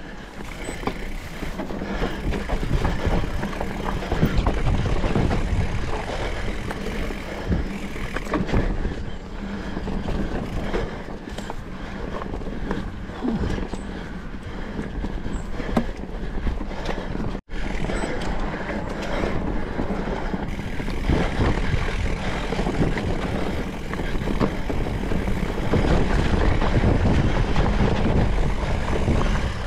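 Electric mountain bike (Specialized Turbo Levo) riding a rough trail: steady rumbling of the tyres and many small rattles from the bike, with low buffeting noise. All sound cuts out for a split second about halfway through.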